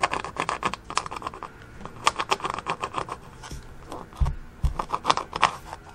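A fingernail scratching at the worn finish of a wooden flooring board, a rapid run of short scratchy strokes as the old coating flakes off under the nail. The strokes pause briefly in the middle, with two dull thumps a little past four seconds in.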